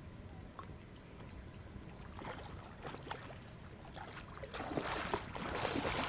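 A hooked rock flathead thrashing and splashing at the water's surface as it is played in against the rocks. The splashes are irregular and grow, and they are loudest from about four and a half seconds in.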